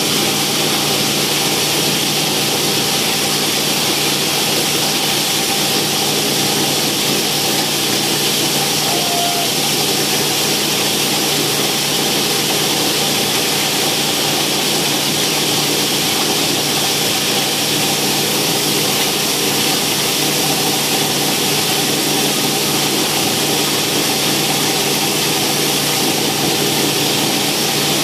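PET bottle crusher (plastic granulator) running steadily, grinding green PET bottles into flakes: a constant, even machine noise with a steady low hum.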